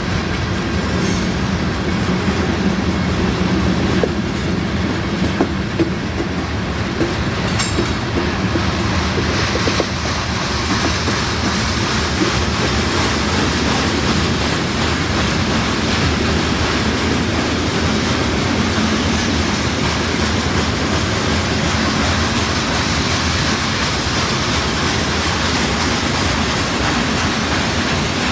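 Freight train cars rolling past: a steady rumble and clatter of steel wheels on the rails, with a few sharp clacks in the first several seconds.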